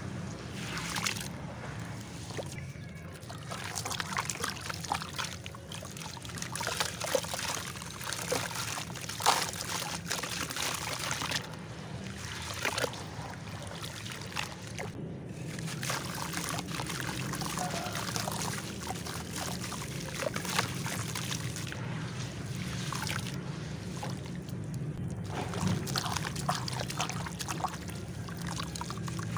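Wet clay being squeezed and crumbled by hands in a tub of water: water sloshing and trickling, with many small gritty clicks and crackles as the clay breaks apart.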